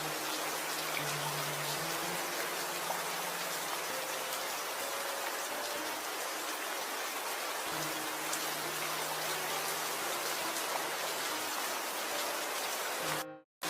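Steady rain falling, a dense even patter. It cuts out abruptly for about half a second near the end, then comes back.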